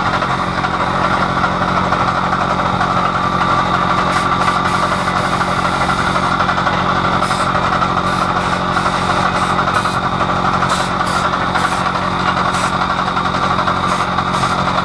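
A machine's motor running steadily, a constant loud hum, with light clicks and taps of metal on metal from about four seconds in.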